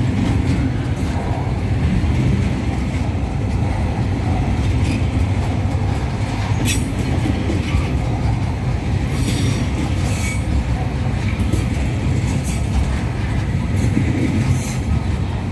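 Loaded freight wagons of a log train rolling past on the track: a steady rumble of steel wheels on rail, with a few brief high-pitched wheel squeaks along the way.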